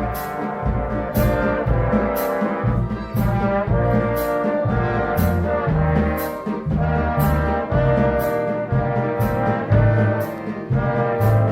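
Swing big band playing, the brass section carrying sustained chords over bass and drums, with a cymbal struck about every two-thirds of a second.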